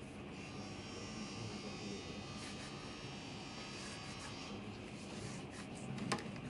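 Low, steady room noise with a faint hum, and a single sharp knock near the end.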